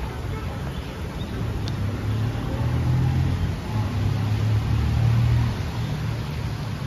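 Steady hiss of rain, with the low rumble of a passing road vehicle swelling for a few seconds in the middle and fading again.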